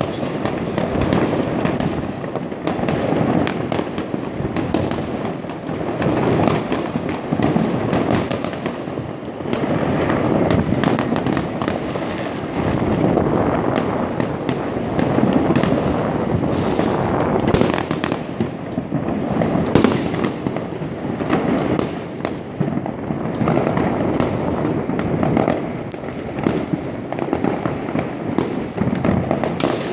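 Many fireworks going off at once, near and far: aerial shells and firecrackers banging and crackling without pause, merging into a continuous din.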